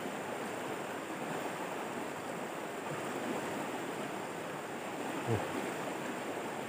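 Shallow rocky river rushing over and between boulders in small rapids: a steady, even rush of water.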